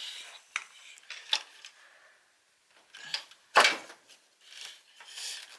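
Metal clinks and knocks of an alternator being forced by hand into its engine mounting bracket, which is a tight fit. There are several separate knocks, the loudest about three and a half seconds in.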